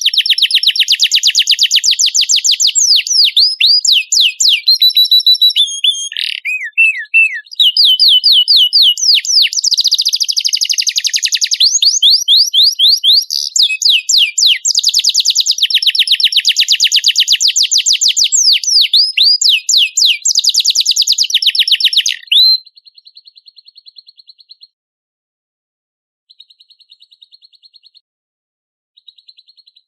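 Domestic canary singing a long, loud song of rapid trills and quickly repeated sweeping notes, cutting off about two-thirds of the way through; after that only faint short chirping phrases.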